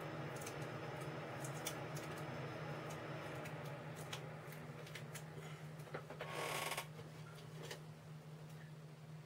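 Faint handling noises of a small paper card piece covered with cellophane tape: light clicks and ticks as fingers press and turn it, with one brief rustle about six and a half seconds in, over a steady low hum.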